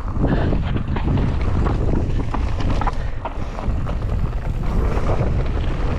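Heavy wind buffeting the microphone on a fast mountain-bike descent, with the tyres rumbling over dirt and a steady stream of quick clicks and rattles from the bike.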